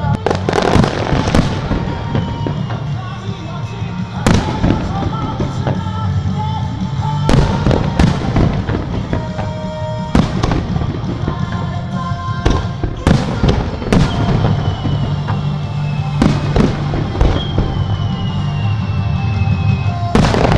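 Aerial fireworks shells bursting over a lake, a sharp bang every second or so, some in quick pairs, with a few falling whistles. Music plays underneath.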